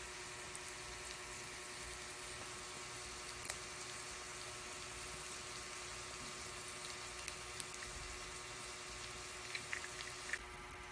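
Chicharon sisig sizzling on a hot sizzling plate, a soft even hiss over a faint steady hum. There is a light tap a few seconds in, and the hiss thins near the end.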